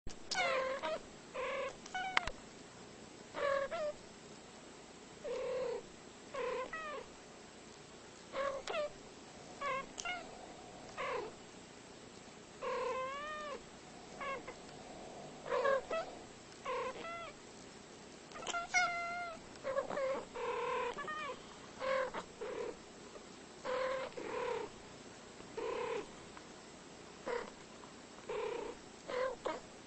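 Two domestic cats trading short meows back and forth, roughly one call a second, many of them bending up and then down in pitch.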